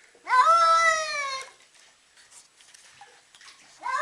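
A cat giving a long, drawn-out meow lasting about a second, its pitch rising and then falling, then starting another meow near the end.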